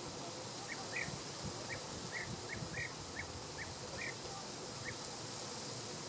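Corn bunting giving a series of about ten short, clipped call notes, irregularly spaced at roughly two a second, over a steady background hiss.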